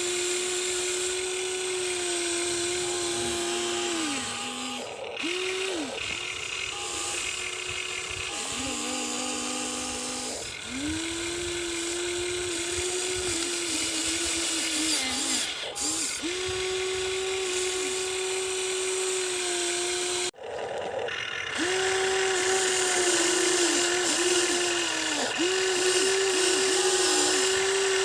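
Huina 1593 RC excavator's electric gear motors whining as the machine works, one steady high whine that stops and restarts every few seconds, dipping briefly in pitch now and then, with a few short spells of a lower whine.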